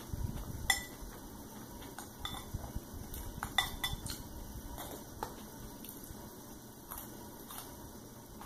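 Chopsticks clicking and scraping against a ceramic bowl as noodles are stirred and picked up, with a scatter of sharp clinks at irregular intervals.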